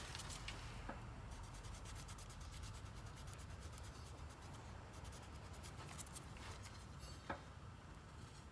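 Faint scratching of a pen writing on paper in many quick short strokes, with a light tap near the end.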